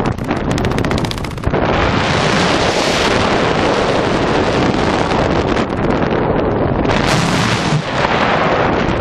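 Wind buffeting a helmet-mounted camera's microphone during a skydiver's descent under canopy: a loud, steady rush, crackly for the first second and a half.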